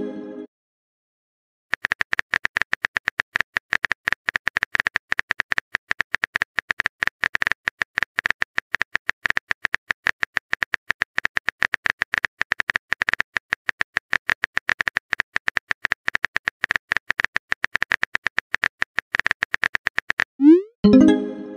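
Rapid phone-keyboard key-tap clicks, a texting app's typing sound effect, as a message is typed out. Near the end a short rising swoop and a chime play as the message is sent.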